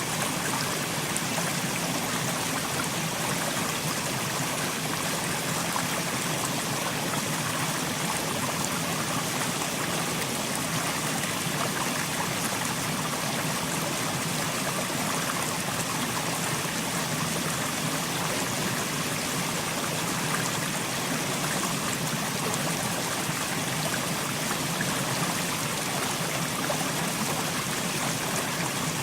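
Mountain stream running over rocks: a steady, unbroken rush of flowing water.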